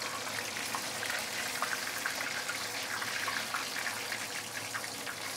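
Whole snapper deep-frying in hot oil in a wok: a steady sizzle with small scattered crackles. The fish is in its last minutes of frying and is basically cooked.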